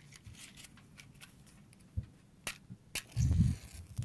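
A matchstick struck against a matchbox: sharp scraping clicks about two, two and a half and three seconds in, then a short hiss as the match catches, over a low rumble.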